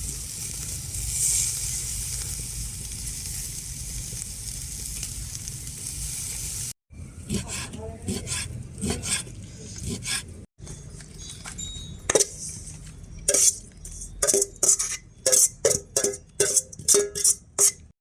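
Pork sizzling over the heat with a steady hiss, then after a cut a run of sharp knocks and clinks of food preparation, coming quicker and louder in the last few seconds.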